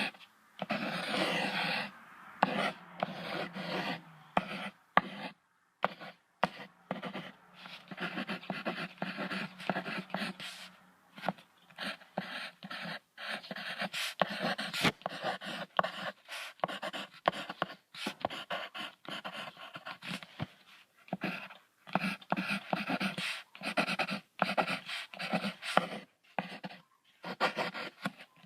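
Polar bear vocalizing in a long string of short, breathy huffs and grunts that follow in quick succession with brief gaps between them.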